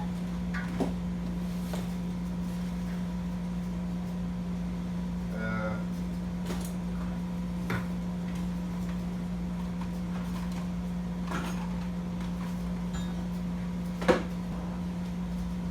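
Steady low hum of an air-conditioning unit running, with a few light clicks and knocks of things being handled and a sharper knock about fourteen seconds in.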